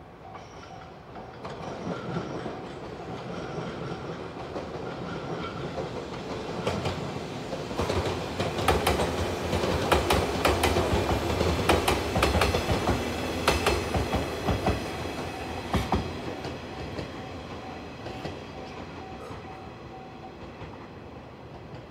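A yellow JR 115-series electric train passing close by. It grows louder, its wheels click rapidly over the rail joints at its loudest, and it fades as it moves away.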